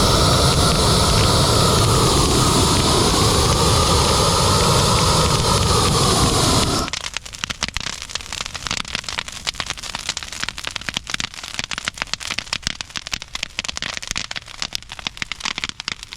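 A loud rushing noise with a wavering hum runs and cuts off abruptly about seven seconds in, leaving a freshly lit brush burn pile crackling with dense, sharp pops.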